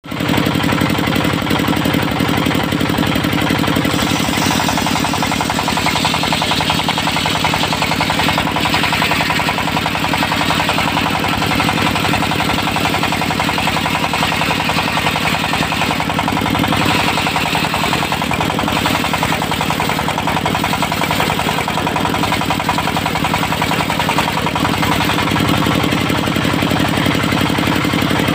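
Diesel engine of a locally built mobile circular sawmill running steadily at constant speed with a fast, even chugging. A higher hiss swells and fades a few times over it.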